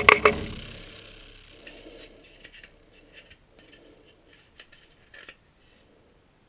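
Metal clanks, then light scrapes and clicks, as a metal milling jig is handled and lifted off a benchtop mill's table. The loudest clank comes right at the start and the small clicks go on until about five seconds in.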